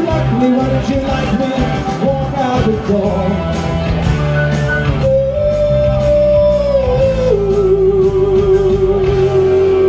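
A voice singing a pop-rock song over loud instrumental backing, the melody settling into two long held notes, the second lower and sung with vibrato from about seven seconds in.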